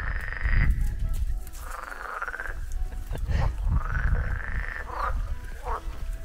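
A chorus of frogs in a quarry pond: long, rattling trilled croaks that rise slightly in pitch, each about a second long and repeated every couple of seconds, over a low rumble.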